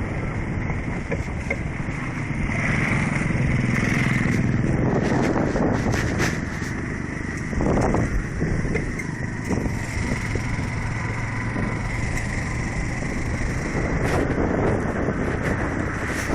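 Motorcycle on the move: engine running steadily under road and wind noise.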